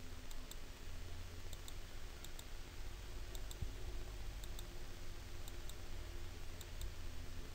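Faint computer mouse clicks, mostly in pairs about once a second, stepping through slide animations, over a low steady hum.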